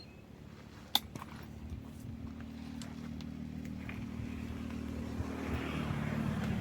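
A motor vehicle engine running steadily and slowly growing louder, after a sharp click about a second in.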